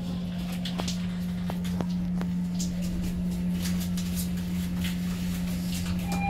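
Lift car riding upward: a steady low hum throughout, with a few faint ticks in the first couple of seconds.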